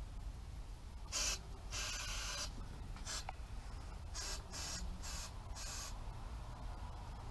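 Can of Dust-Off compressed air hissing in seven short bursts, the second the longest, as it is blown through a Mercury outboard's speedometer pickup and speed tube to clear out any water.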